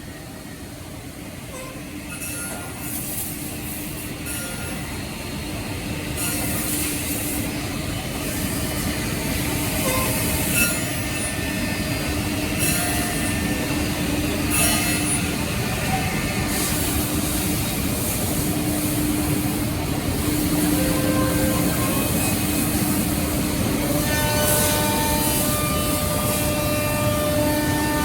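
Five-axis CNC router machining wood. Several steady motor whines, whose pitch changes from time to time, sound over a continuous rush of cutting noise with crackling spurts. The noise grows louder over the first several seconds.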